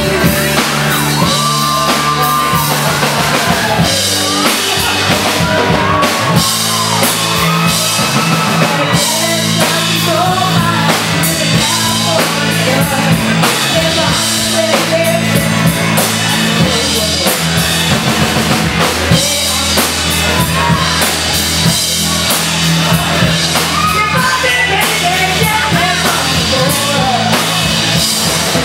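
Live rock band playing: a woman's lead vocal over electric guitar, bass and a drum kit, at steady full volume.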